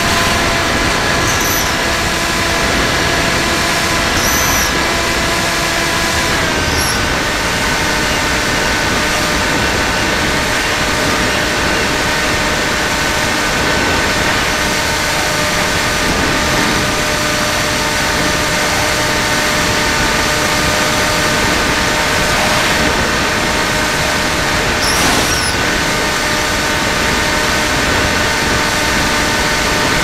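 Electric motor and propeller of an FPV Raptor model plane whining steadily under the rush of airflow over the onboard camera; the motor pitch drops a little about six seconds in as the throttle eases. A few faint short high chirps.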